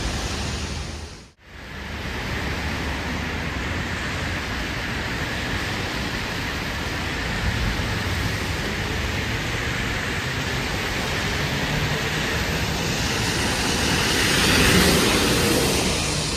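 Steady hiss of rain and tyres on a wet street, with a brief dropout about a second in and a swell near the end as traffic passes.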